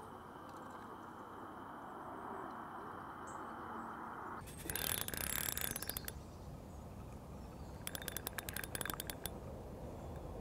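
Fishing reel ticking in two runs of rapid clicks, the first about halfway through and a second, sparser one near the end, as a freshly hooked tench is played on a float rod.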